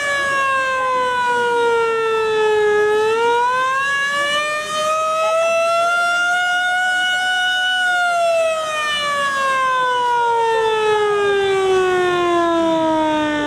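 Warning siren wailing with a single long tone that dips, climbs for about five seconds, then slowly falls to a low pitch near the end. It is the siren sounded ahead of an explosive chimney demolition, signalling that the blast is imminent.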